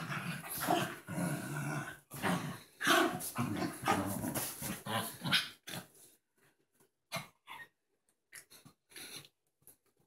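Two small dogs play-fighting and growling at each other, steadily for about the first six seconds, then only in a few short spurts.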